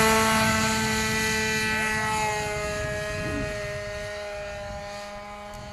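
Atlas trainer model airplane's small piston engine running at a steady high pitch as the plane takes off and climbs away, fading gradually as it gets farther off.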